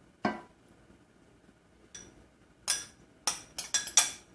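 A spoon clinking against a small dish while spooning saffron milk over biryani rice: one knock just after the start, then a quick run of sharp clinks in the last second and a half.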